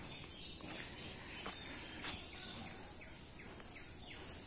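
Insects droning steadily in a high pitch, with faint footsteps rustling on dry leaf litter now and then.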